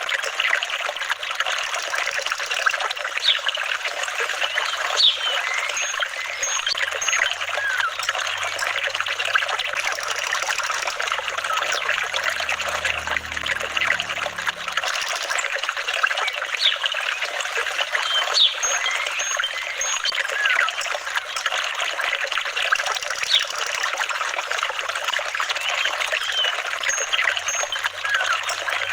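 Water trickling and flowing in a steady, continuous babble, with short bright plinks scattered through it.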